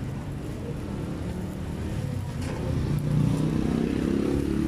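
A small motor-vehicle engine, most likely a motorcycle, running with a low steady hum that grows louder about three seconds in.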